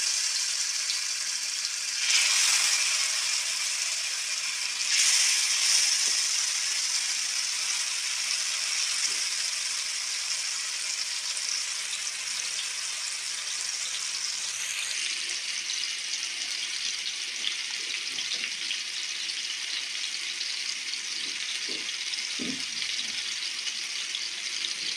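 Marinated chicken tikka skewers sizzling as they fry in hot oil in a pan. The sizzle surges sharply as a new skewer goes in, about two and again about five seconds in, then settles into a steady frying hiss.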